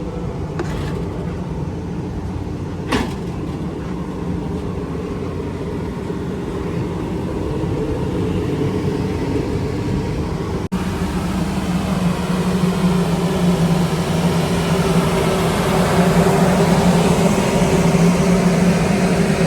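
A steady mechanical drone with a low hum, growing louder in the second half, with a single sharp click about three seconds in.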